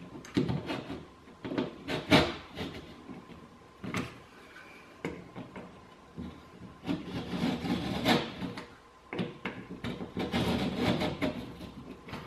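Stanley knife blade cutting into plasterboard along a spirit level held as a straight edge: a series of irregular scraping strokes with a few sharp clicks.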